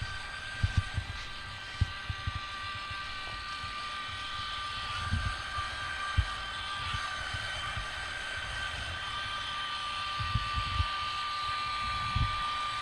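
Small dual electric motors of a DEERC 1:16 amphibious RC monster truck running with a steady high whine, with irregular low thumps throughout.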